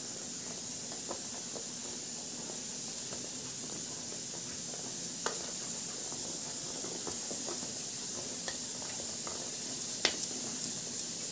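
Wire whisk stirring thin gram-flour batter in a steel bowl: a steady swish with a few clicks of the whisk against the bowl, several close together near the end.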